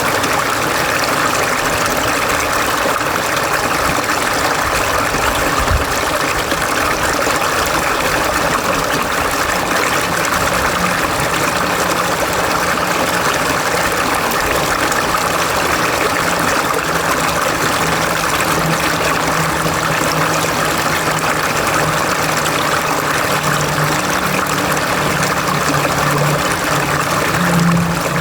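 Mountain valley stream running steadily. A low droning hum comes in about halfway through and grows louder near the end.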